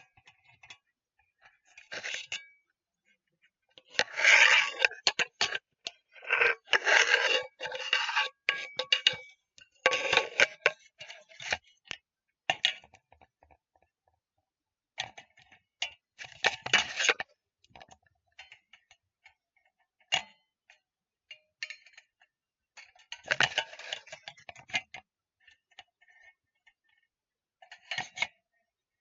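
Cooking pots handled gently, clinking and scraping against each other in irregular bursts with short pauses between, the loudest a few seconds in.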